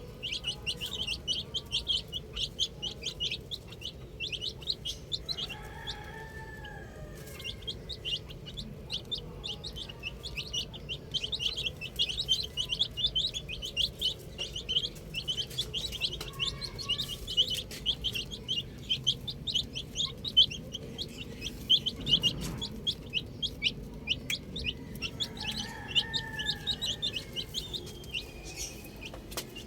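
Domestic chicks peeping: a dense chorus of rapid, high chirps. Three times a lower chicken call sounds over them.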